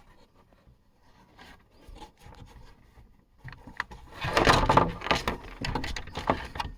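Workshop handling noise from small parts being worked by hand: a few faint clicks, then about four seconds in a louder stretch of scraping, rustling and light knocks.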